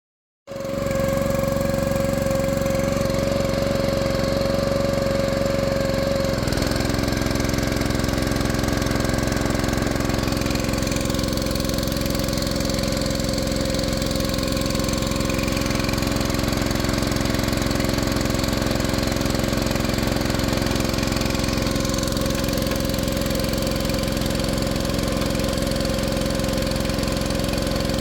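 Small single-cylinder gasoline engine of the drilling rig, a Predator 212, running steadily with a steady whine over it. About six seconds in, extra steady tones join as the load or running note changes.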